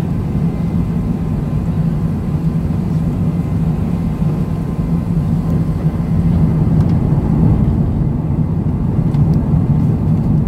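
Airbus A380 cabin noise heard over the wing on landing approach: a steady low rumble of engines and rushing airflow, growing slightly louder about halfway through.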